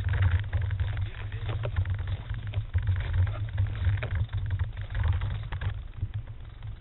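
Handling noise on a small onboard camera's microphone as it is carried: a heavy, uneven low rumble with scattered crackles and rubs, the mic brushing against clothing.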